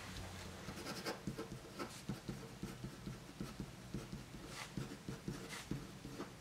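Pen writing on a sheet of paper on a desk: quiet scratching and tapping strokes as words are written.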